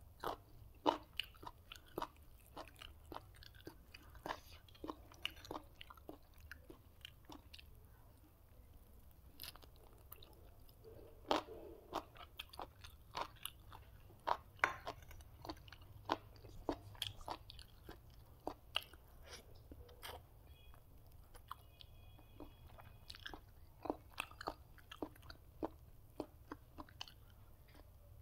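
A person eating chicken biryani and its sides: chewing and biting, with many short, irregular crunches and wet clicks, often two or three a second.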